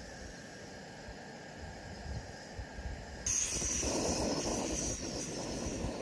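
Portable gas camping stove's burner hissing steadily under a steaming Fire-Maple kettle; the hiss comes in suddenly about three seconds in, after a faint night ambience with insects.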